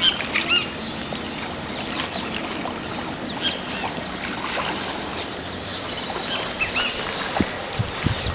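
Many birds chirping and calling, short rising and falling chirps throughout, over a steady background hiss. A few low thumps near the end.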